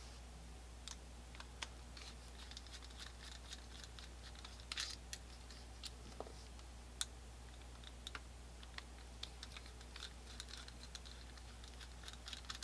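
Faint, irregular small clicks and scrapes of a screwdriver and steel parts as screws are backed out of a Colt 1860 Army cap-and-ball revolver's frame, over a steady low hum.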